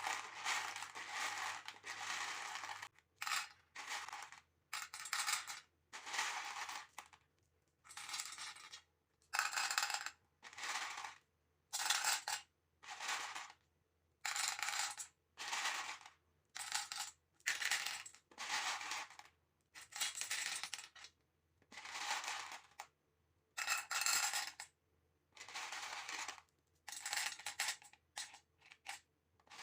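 Small coloured beads clattering against each other and a hard container in many short rattling bursts with brief pauses, as they are poured or scooped.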